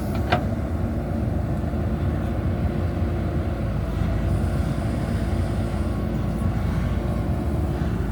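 JCB backhoe loader's diesel engine running steadily under work, with one short sharp click about a third of a second in.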